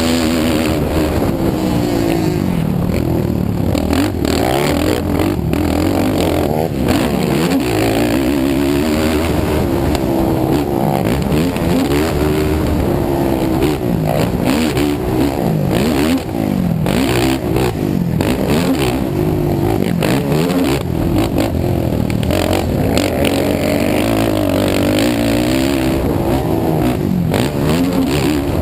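Sport ATV engine revving hard and easing off again and again as it is ridden around a motocross track, its pitch rising and falling with the throttle and gear changes, heard from on board.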